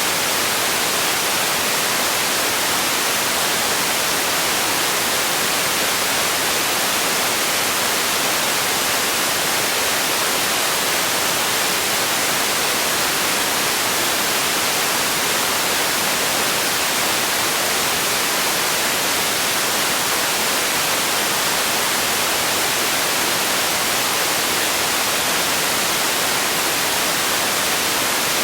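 Steady white noise: a constant, even hiss, strongest in the high frequencies, with no change in level or character.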